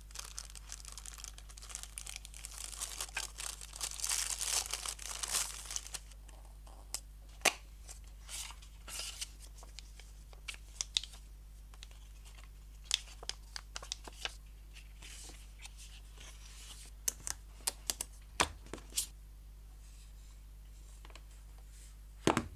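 Plastic shrink wrap being torn and crumpled off an Apple MagSafe charger box, a dense crinkling for the first few seconds. Then scattered clicks, taps and rustles of the cardboard packaging as the charger is taken out, and a single sharp knock near the end.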